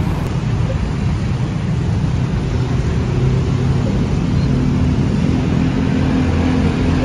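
Steady low rumble of city street traffic, with cars and motorbikes running past. The engine hum grows a little louder in the second half.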